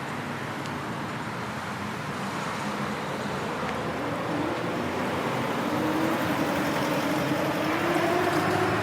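Busy street traffic: a steady wash of road noise, with one vehicle's engine rising in pitch and growing a little louder over the second half as it accelerates.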